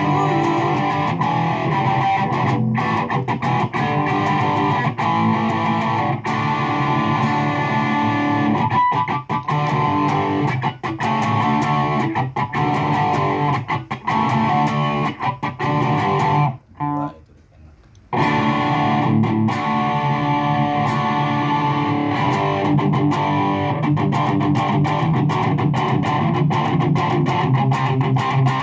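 Hagstrom Ultra Swede electric guitar played through a Fender Champion 20 amp and picked up by a phone microphone, with chords and lines played continuously. A little past the middle the playing stops for about a second and a half.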